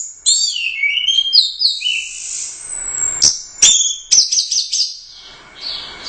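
Orange-headed thrush singing a varied song of whistled notes and chirps, with two sharp clicking notes a little past the middle and then a quick run of about four falling notes.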